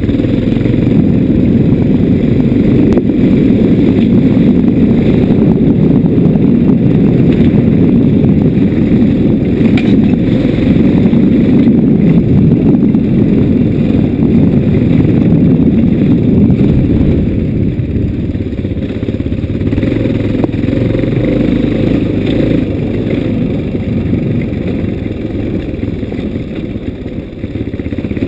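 Steady low rumble of a vehicle riding over a rough dirt track, heard from on board, with rattling from the bumps. It eases off for a few seconds about two thirds of the way through.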